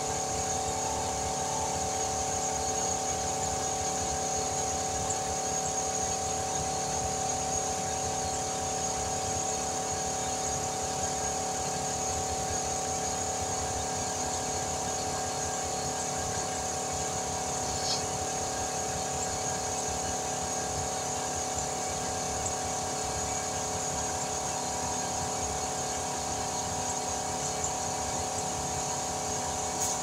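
Car tyre being filled through a lock-on air chuck and inflator hose, with an air compressor running: a constant hum with a hiss of air. A faint tick about two-thirds of the way through.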